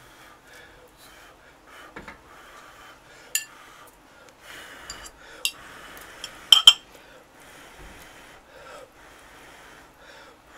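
Close-up eating sounds of ramen noodles being slurped and chewed, with several sharp clicks of chopsticks against the bowl, the loudest a pair about six and a half seconds in.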